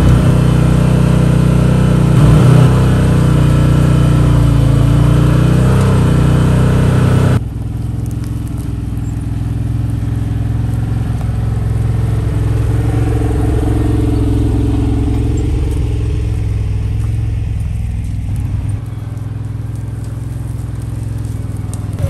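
Can-Am side-by-side engine running as it tows a sawmill trailer over a rough forest trail. About seven seconds in, the sound drops abruptly to a quieter level, and the engine note then rises and falls.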